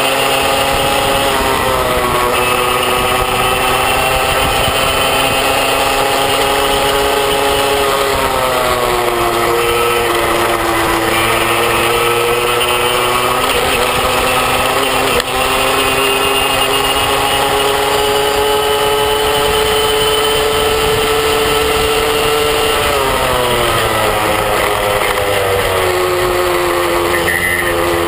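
Moped engine running at speed, its pitch falling and rising as the throttle is eased and opened again, with a steady hiss of wind and road underneath.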